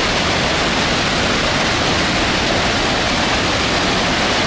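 Turbulent white water rushing and churning through a rocky channel, a loud, steady, unbroken rush. It is water forced up from underground under pressure, which the speaker takes to be seeping through cracks from the falls.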